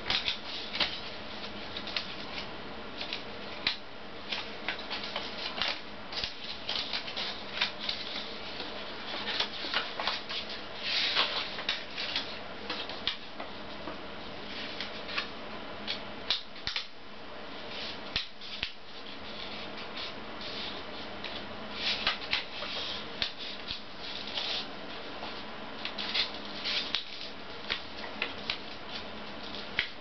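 Square of origami paper being folded and creased by hand: irregular crinkles, rustles and quick sharp creasing strokes against the tabletop, over a faint steady hum.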